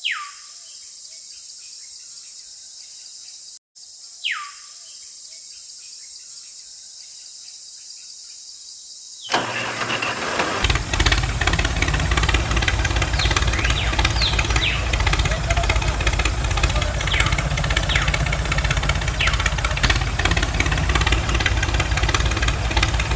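A tractor engine starts about nine seconds in and then runs steadily with a heavy low rumble. Before it, a steady high hiss with two quick falling tones.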